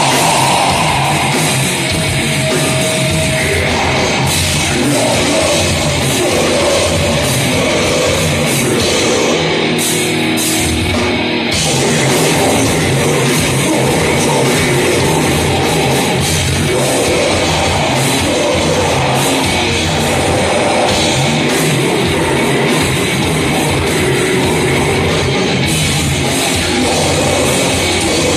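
Loud heavy metal music with distorted electric guitars and drums.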